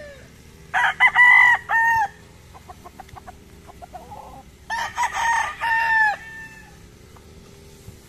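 Gamecocks crowing: two full cock-a-doodle-doo crows, one about a second in and another about five seconds in, each a few short notes ending in a long held note.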